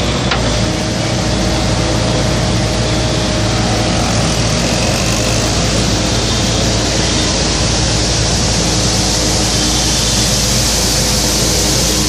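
Skid steer loader's engine running steadily close by, a loud, even hum with a constant hiss over it.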